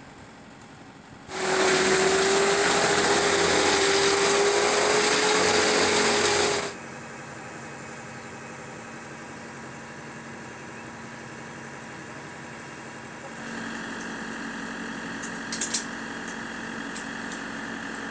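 A petrol chainsaw runs at high revs for about five seconds, steady and loud, then cuts off suddenly. After that a quieter steady engine drone carries on, with a few sharp clicks near the end.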